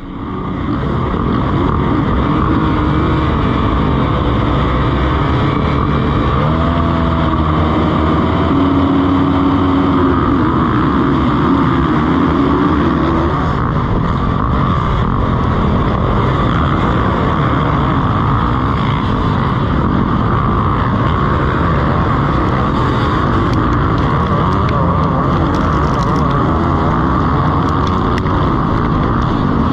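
Motocross bikes racing, their engines running hard in a continuous loud din. Between about six and thirteen seconds in, one engine stands out, its pitch changing.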